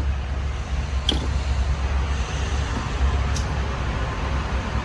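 Steady low rumble with a few faint, sharp knocks.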